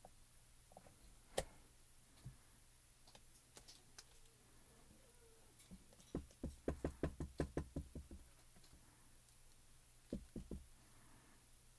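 Clear acrylic stamp block tapped quickly and repeatedly on an ink pad to ink a strawberry stamp: about a dozen quick knocks over two seconds, with a single sharp click early and three more knocks near the end.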